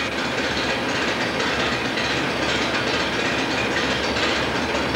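Petrol engine of a newly restored First World War Simplex narrow-gauge locomotive running steadily with a fast, even clatter.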